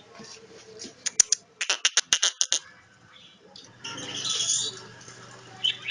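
Javan myna bathing in a basin of water: a quick run of sharp splashes about a second in, then a softer spell of splashing.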